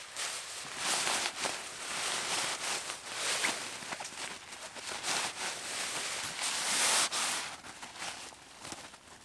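Camouflage netting rustling as it is pulled off the tent and crammed by hand into its fabric stuff sack, in irregular bursts that are loudest about a second in and again near seven seconds.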